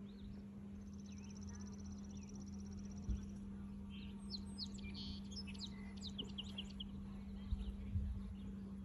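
Birds chirping outdoors: a fast, high, even trill for the first three seconds or so, then a cluster of quick chirps in the middle. A steady low hum runs underneath.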